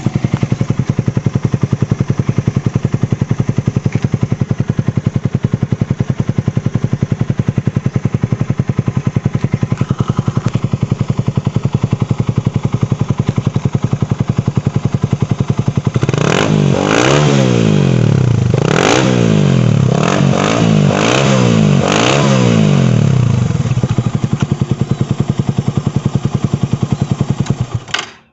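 Suzuki Raider 150 motorcycle engine breathing through an aftermarket Apido Thai pipe exhaust: idling steadily, then blipped through a series of about six quick revs over several seconds, falling back to idle and cutting off at the end.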